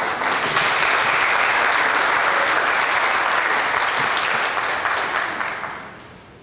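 Congregation applauding loudly, a dense steady clapping that dies away near the end.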